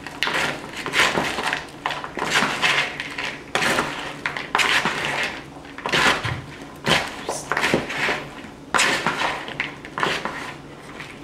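Wooden spoon and spatula tossing a crouton salad in a mixing bowl: irregular scraping and clattering strokes, roughly one a second.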